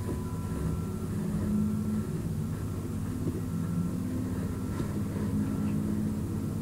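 A steady low machine hum, with a couple of faint, thin high tones over it.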